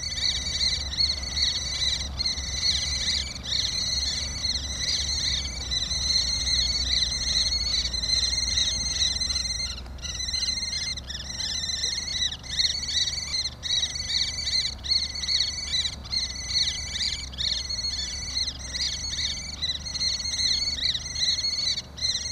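Crickets chirping in a steady, rhythmic chorus, over a low steady rumble.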